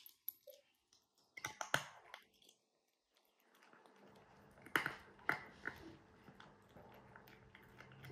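Domestic cat chewing dry kibble: irregular crisp crunches in clusters, with a pause of about two seconds in the middle.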